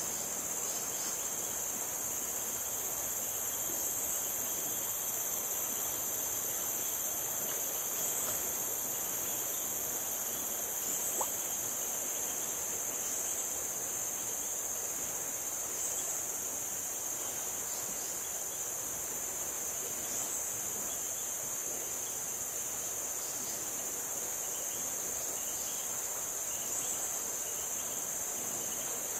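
Steady, high-pitched insect chorus of crickets and similar insects, running without a break.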